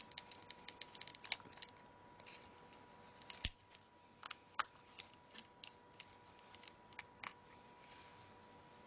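Small sharp clicks of a tiny screwdriver working the screws out of a phone's frame: a quick run of clicks at first, a louder knock about three and a half seconds in, then scattered clicks that stop about seven seconds in.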